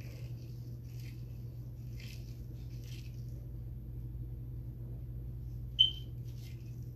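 Hands kneading a wet, blended hair mask through hair: soft squishing rustles about once a second over a steady low hum. Near the end, one short, sharp high squeak stands out.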